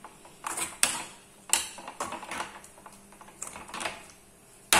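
Flat metal spatula stirring a thick vegetable-and-coconut mixture (avial) in a metal kadai, scraping against the pan with an irregular clatter and a few sharp knocks.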